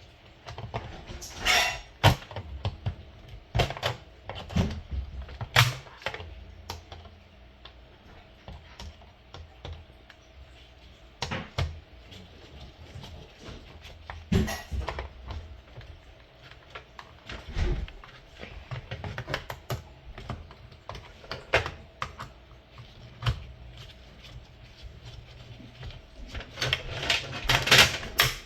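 Irregular clicks, taps and knocks of plastic parts as a Timex alarm clock is taken apart by hand, with a denser run of louder clicking near the end.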